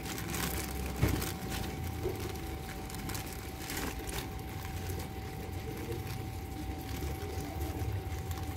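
Clear plastic bag holding a wiring harness crinkling lightly now and then as it is handled, with one sharp knock about a second in. Underneath runs a steady low rumble and a thin, steady high tone.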